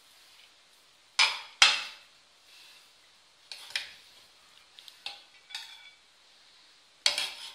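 Metal serving spoon knocking and scraping against a metal cooking pot while rice is stirred and scooped out. About half a dozen sharp, irregularly spaced clanks with short ringing tails, the loudest pair about a second and a half in.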